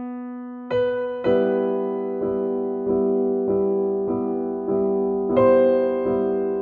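Slow piano background music: single notes and chords struck about every half second or so and left to ring out.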